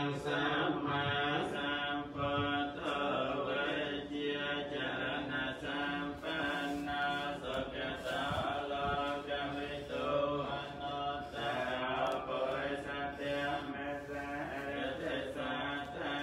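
Theravada Buddhist monks chanting in Pali, a continuous sung recitation with no pauses.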